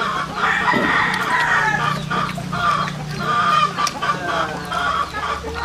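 Backyard chickens clucking, with a rooster crowing: one long call early on, then shorter calls.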